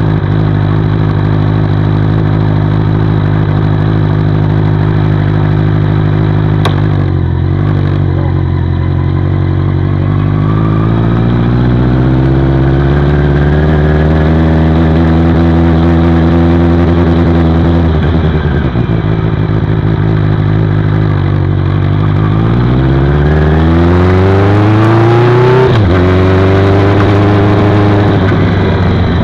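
Benelli TNT600 inline-four engine and exhaust idling, then pulling away at low speed. The revs climb slowly and fall back, then climb more quickly and drop suddenly at a gear change near the end. There is a single click about a quarter of the way in.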